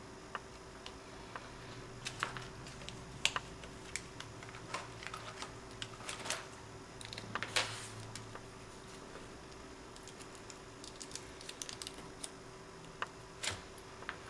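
Scattered faint clicks and taps of fingers handling paper and pressing small paper roses and leaves onto a card on a cutting mat, with one longer scratchy rustle about seven and a half seconds in, over a faint steady hum.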